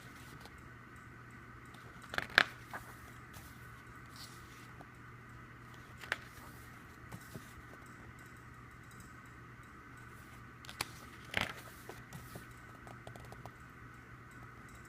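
Handling of a CD album's packaging: scattered crinkles and a few sharp clicks, the loudest about two seconds in, over a steady low hum.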